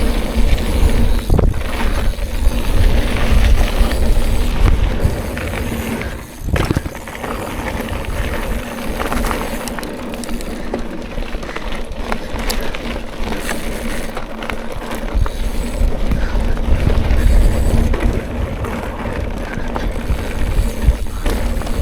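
Mountain bike riding a rough trail: tyre noise and bumps over the ground, with wind rumble on the microphone. Music plays beneath, with a steady held tone.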